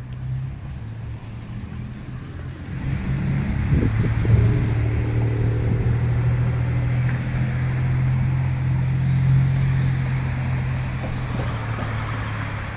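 Street traffic: a motor vehicle's engine running close by with a steady low hum, getting louder about three seconds in and holding.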